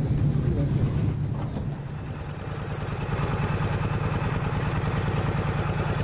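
Small wooden fishing boat's engine running steadily with a rapid low chugging, easing slightly about two seconds in and then picking up again.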